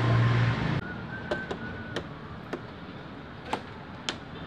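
A loud low steady hum cuts off suddenly under a second in. It is followed by about six sharp clicks and light taps, spaced irregularly, as parts of a flat-screen TV are handled during reassembly.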